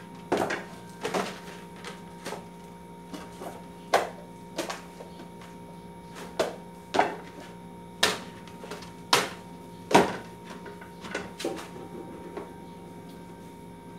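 Plastic food containers and dishes clattering and knocking as they are handled and set down: a string of sharp, irregular knocks, the loudest near the end, over a steady low hum.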